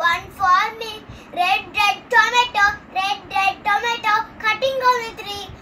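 A young girl singing a nursery rhyme about colours, unaccompanied, in short sing-song phrases.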